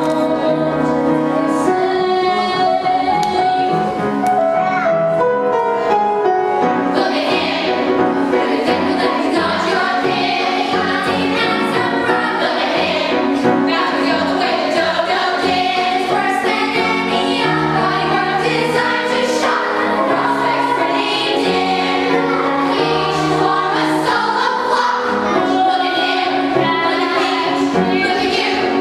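A young cast singing an ensemble musical-theatre number together over musical accompaniment, with no break.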